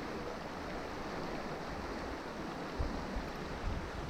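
Steady rush of river water flowing over stones, with a few low thumps on the microphone, the loudest about three seconds in.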